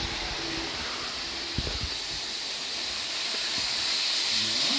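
Roco H0 model trains running on the track with their digital sound switched off: a steady hissing whir of wheels and motors, growing louder about three seconds in as the red Railjet comes close.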